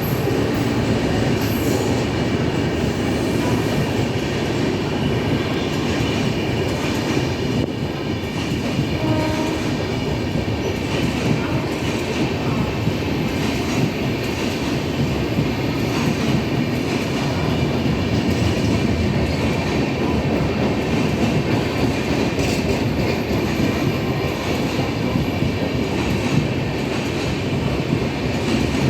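Indian passenger express train rolling along the platform as it arrives, a steady loud rumble of coaches with wheels clattering over the rail joints.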